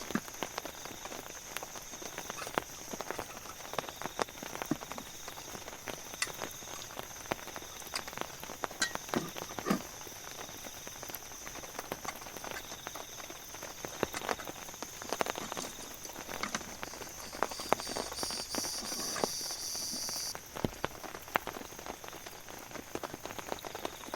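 Rain falling in irregular, scattered drops that patter and tap, over a steady hiss. About three quarters of the way through, a louder high buzz joins in for a few seconds and then cuts off suddenly.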